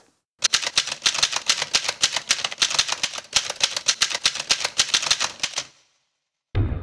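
Rapid typewriter keystrokes, about ten clicks a second, that stop after about five seconds. Just before the end, music comes in with a low drum hit.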